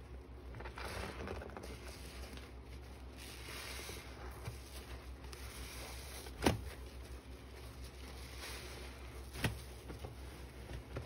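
Soap-soaked scrub sponges squeezed and kneaded in thick suds: wet squishing and foam crackling in soft swells, with a sharp click a little past the middle and another about three seconds later.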